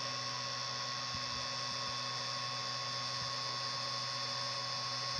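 Creality Ender 5 3D printer running during auto-home: a steady electrical hum with a thin high whine from its motors and fans.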